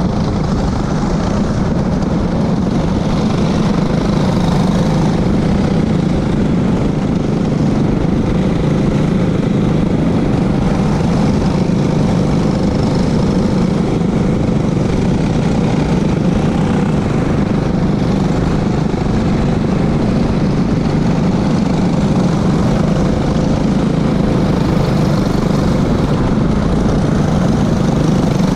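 Racing go-kart engines running hard in a close pack, heard from a camera mounted on a kart, a steady loud engine drone mixed with rushing noise.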